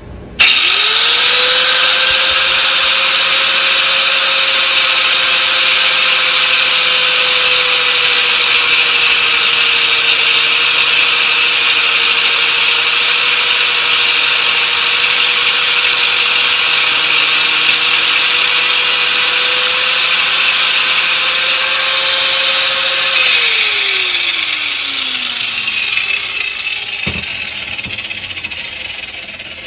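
Angle grinder with a cut-off wheel starting up and cutting through a stainless steel braided hose wrapped in masking tape: a steady high motor whine under a loud hiss of the cut. About 23 seconds in it is switched off and the whine falls away as the wheel spins down, followed by a single knock near the end.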